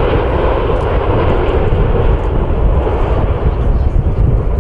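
Boeing 787-9 airliner's jet engines running steadily as it comes in to land, a loud even rush with a rumble of wind buffeting the microphone underneath.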